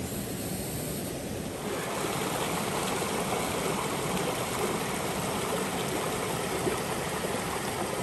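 Stream water rushing, a steady hiss that grows a little louder about two seconds in.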